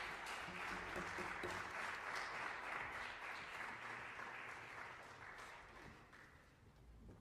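Audience applauding, the clapping thinning out and dying away over the last two seconds or so.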